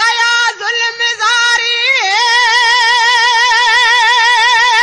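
A high solo voice singing a Sindhi molood without words: a few short phrases, then from about two seconds in one long held note with a wide, even vibrato.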